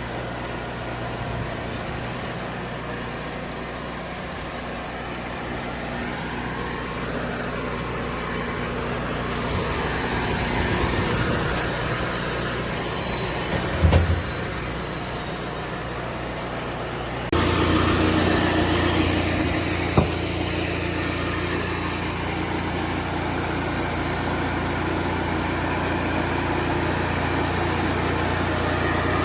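Band sawmill's engine running steadily while slabbing a red oak log. There are sharp knocks about 14 and 20 seconds in, and the sound gets abruptly louder and lower partway through.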